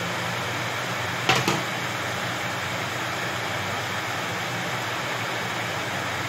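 Pot of water boiling hard on a stove burner with armadillo meat in it: a steady rushing hiss, with two short clinks about a second in.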